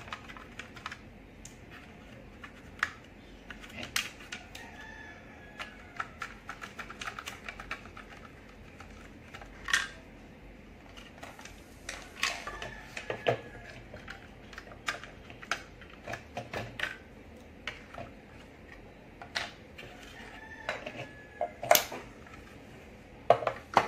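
Irregular clicks and clacks of hard plastic toy-train locomotive parts being handled and a small screw being worked out with a screwdriver, with a few louder knocks scattered among the lighter ticks.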